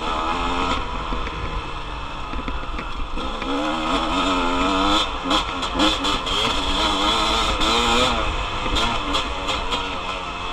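Dirt bike engine running under changing throttle, its pitch rising and falling as it revs up and eases off, over a rush of wind on the microphone. A few sharp knocks come through about five to six seconds in.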